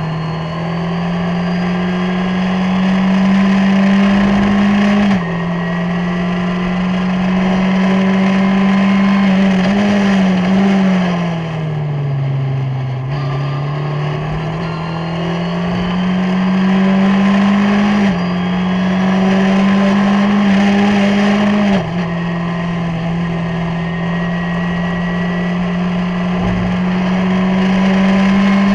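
Skip Barber formula race car's 2.0-litre SOHC four-cylinder engine, heard from on board, pulling hard under full throttle with the engine note climbing and dropping sharply at each upshift, about five seconds in and twice more in the second half. Around ten to thirteen seconds in the note sinks as the car brakes and downshifts for a corner, then climbs again as it accelerates out, with wind and tyre rush underneath.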